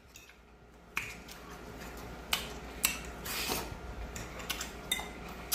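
Metal forks clinking and scraping against a plate while food is eaten. It is faint at first; from about a second in come scattered sharp clinks, a handful in all.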